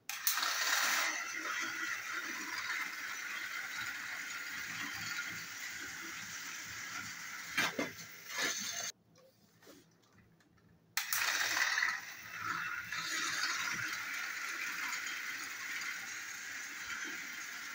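Battery-powered toy train engines whirring, their small geared motors running steadily. A couple of plastic clacks come about eight seconds in, then a short break of about two seconds, and the whirring starts again as the engines run along the plastic track.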